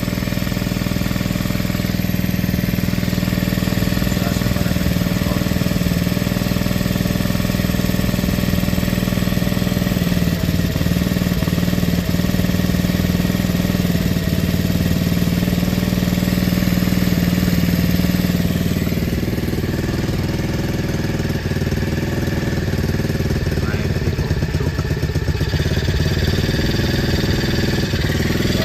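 A 152FMH 110 cc four-stroke single-cylinder quad engine with a PZ19 carburettor idles steadily on choke. About two-thirds of the way in, its steady note drops and the running becomes rougher and less even.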